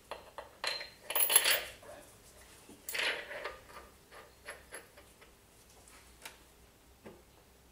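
Metallic clinks and clatter of tools or parts being handled: a loud rattling clatter about a second in, a second one about three seconds in, then scattered small clicks.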